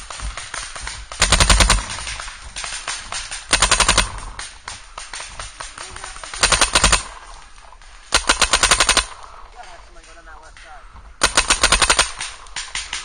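Empire Vanquish electronic paintball marker firing five rapid bursts of closely spaced shots, each burst under a second long, with fainter scattered paintball shots from other players between them.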